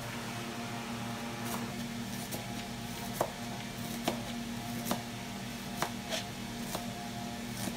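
Chef's knife chopping red onion on a cutting board: sharp knocks of the blade on the board, about one a second, over a steady low hum.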